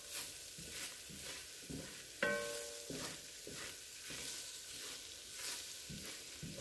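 Wooden spoon stirring and scraping flour- and mustard-coated diced vegetables around an enameled cast-iron French oven, about two strokes a second, over a light sizzle. A short ringing tone sounds once, about two seconds in.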